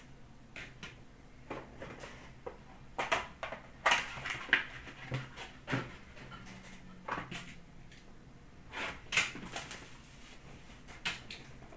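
Handling noises: a plastic card holder and cardboard card boxes being picked up and set down on a glass counter, a scattered series of short clicks, taps and rustles.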